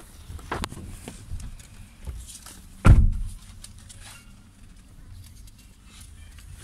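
Handling noise from hands moving a phone camera and a portable speaker: rustling and small knocks, with one loud thump about three seconds in.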